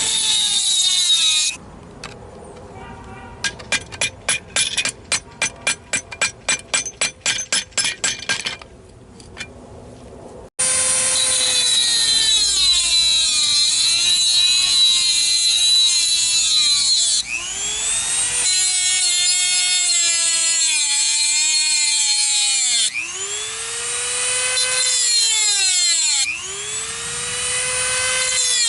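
A Dremel rotary tool grinding into the stuck outer wheel-bearing race on the spindle, its high whine dipping in pitch as it bogs under load and recovering, stopping and starting again several times. Between its runs, near the start, comes a quick series of about twenty sharp taps, about four a second.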